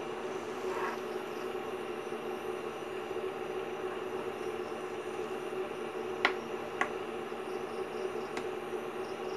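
A steel ladle clinks against the wok three times, twice about six seconds in and once more about two seconds later, while it stirs a thin curry liquid. Under it runs a steady mechanical hum.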